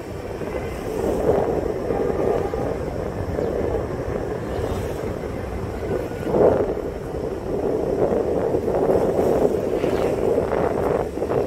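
Road and traffic noise heard while moving along a city street, with wind rushing over the microphone; it swells briefly about six and a half seconds in.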